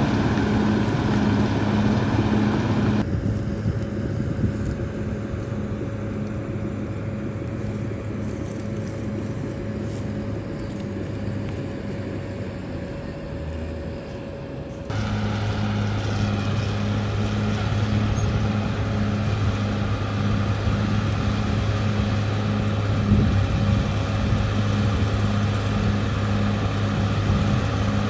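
Caterpillar D6R XL bulldozer's diesel engine running steadily with a low, even drone. About three seconds in the sound abruptly turns duller and a little quieter; about fifteen seconds in it abruptly comes back louder and fuller.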